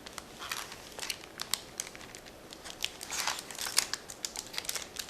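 Plastic-wrapped rack packs of trading cards being handled, the wrappers crinkling in scattered crackles that crowd together about three to four seconds in.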